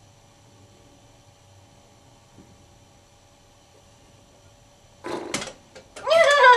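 A horse-like whinny falling in pitch near the end, after a short breathy snort about five seconds in; before that, only quiet room tone.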